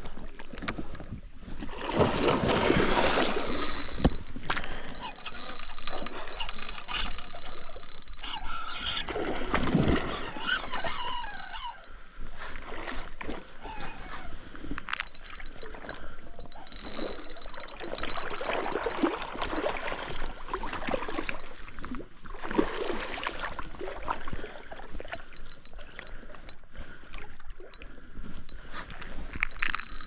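River water splashing and sloshing in irregular surges while a hooked king salmon is being fought.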